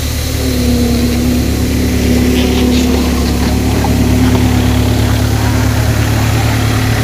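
Engine of a Gehl skid-steer loader running steadily as the machine drives past close by, a steady low rumble with a hum that comes in and grows a little louder about half a second in.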